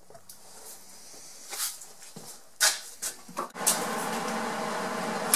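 A few sharp knocks and clatters of handling, then a steady mechanical hum starts a little over halfway through and keeps running.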